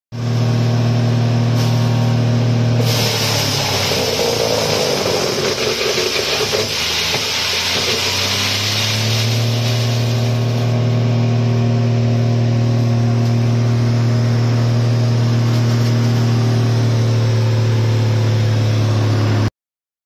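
Drum-type wood crusher driven by an electric motor, running with a steady hum. From about three seconds in, a log fed into it is ground up with a loud, harsh grinding that lasts about six seconds. Meanwhile the machine's hum dips in pitch under the load, then climbs back to steady no-load running once the wood is through.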